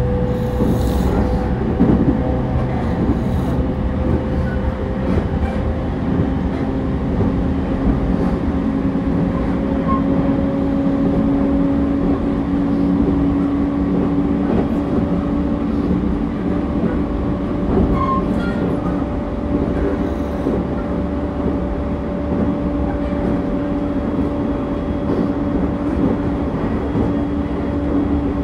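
Cabin running sound of a JR East E231 series 1000 renewed commuter train under way: a steady rumble of wheels on track, under a motor whine whose two tones climb slowly in pitch. The lower tone comes in about six seconds in.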